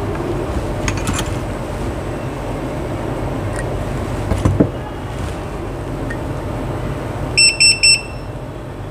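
A quick run of three or four sharp electronic beeps about seven and a half seconds in, over a steady low background hum, with a single short click or tap near the middle.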